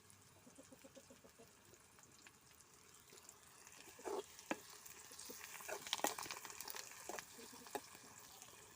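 Onions and curry leaves frying in oil in a pan with a faint sizzle; about halfway through, a spatula stirs and scrapes against the pan in a series of sharp clicks.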